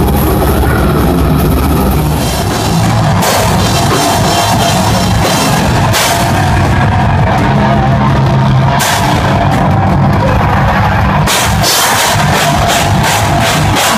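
A live heavy metal band playing loud: distorted electric guitars over a drum kit with cymbals. The drumming turns fast and dense in the last few seconds.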